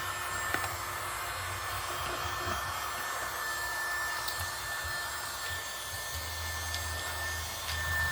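Mini USB keyboard vacuum cleaner running: a small motor's steady high whine over an airy hiss, with a few faint clicks.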